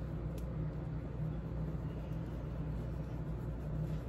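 Steady low hum with faint background noise, and a single faint click about half a second in.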